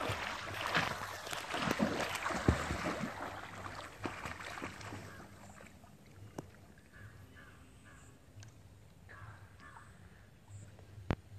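Water splashing and churning as a swimmer strokes and kicks through a pond, easing to gentle lapping about halfway through as he floats on his back. In the quieter second half a bird gives short calls several times, and there is a sharp click near the end.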